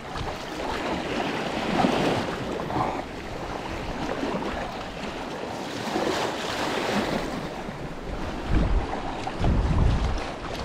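Choppy sea splashing and slapping around a sea kayak being paddled hard through rough water, with swells of louder water noise. Gusts of wind buffet the microphone near the end.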